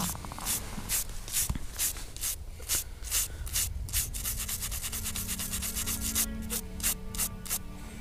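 A toothbrush scrubbing soil off a freshly dug-up WWII German identity tag (Erkennungsmarke): a run of short back-and-forth brushing strokes, about three a second, quickening into a rapid scrub in the middle.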